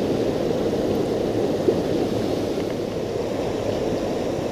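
River water rushing steadily over shallow rapids. A single short click about a second and a half in.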